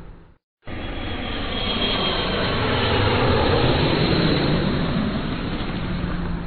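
Airplane engine roar: one sound fades out, then after a brief silence another starts abruptly. It grows louder to a peak around the middle and eases off near the end, like a plane passing by.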